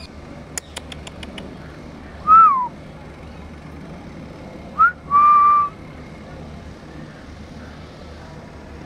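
A person whistling three notes: a falling whistle about two seconds in, then a quick rising flick followed by a steady held note around five seconds in. A few sharp clicks come in the first second and a half, over a low steady background hum.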